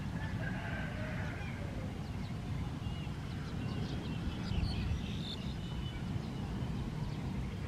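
Black-collared starlings calling: a faint warbling phrase near the start, then scattered short, high chirps, over a steady low rumble.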